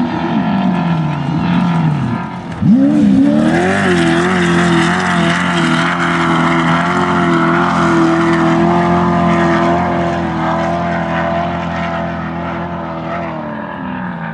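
Off-road desert race buggy's engine running at high revs. The engine note falls away in the first couple of seconds. About two and a half seconds in it cuts in loud and rises as the buggy accelerates, then holds a steady high note, dropping in pitch and fading near the end as the buggy moves away.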